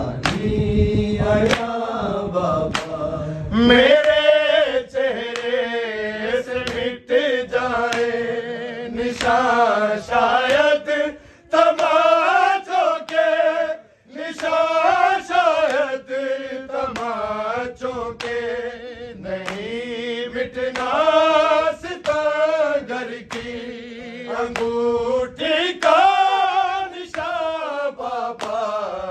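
Male voice chanting a noha, an Urdu lament, in long wavering sung lines. Sharp rhythmic strikes of matam, hand beating in mourning, about once a second in the first few seconds.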